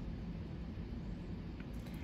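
Quiet room tone: a steady low hum and hiss, with a couple of faint clicks near the end.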